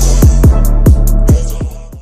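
Electronic background music with a heavy kick drum about twice a second and hi-hats, fading out near the end.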